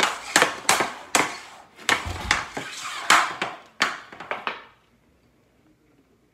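Hockey stick blade and puck clacking on a plastic stickhandling board: a quick, uneven series of sharp clacks that stops about four and a half seconds in.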